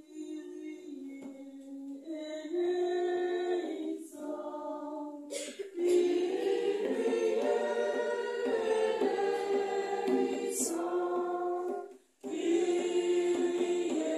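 A group of voices singing a liturgical chant in unison and without instruments, in held phrases broken by short pauses about four seconds in and about twelve seconds in.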